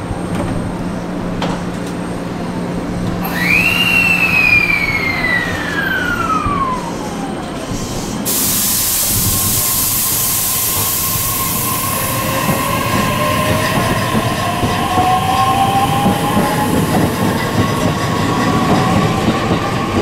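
JR East E131-series electric train pulling out of the station: a high whine from its traction equipment glides down in pitch a few seconds in, then rising whines follow as it picks up speed over the steady noise of the moving train.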